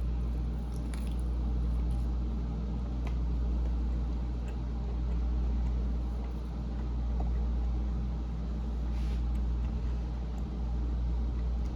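Faint chewing and wet mouth clicks of someone eating steak, over a steady low rumble that is the loudest sound.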